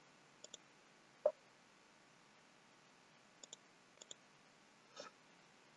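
Faint computer mouse button clicks, mostly quick double-clicks heard three times, with a single slightly louder tick about a second in.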